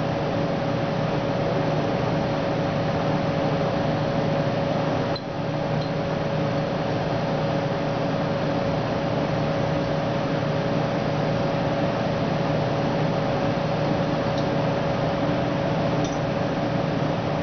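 Steady machine hum and hiss of laboratory equipment or ventilation, with a constant mid-pitched tone, dipping briefly about five seconds in. A couple of faint glass clinks come near the end as a glass sample bottle is handled.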